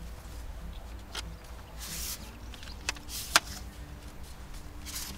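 Handling noise from a metal detector being put together: a few sharp clicks, the sharpest just over three seconds in, and short rustles, over a low steady rumble.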